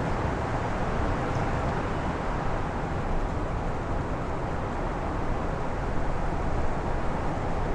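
Strong wind blowing on a very windy day: a steady rushing noise, heavy in the low end, that holds evenly throughout.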